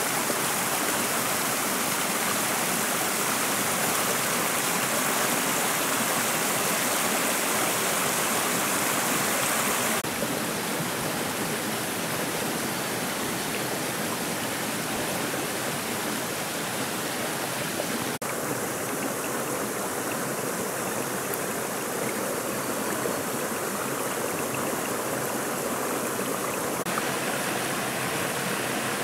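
Shallow stream running over rocks and pebbles: a steady rushing of water. Its tone changes abruptly a few times, about ten, eighteen and twenty-seven seconds in.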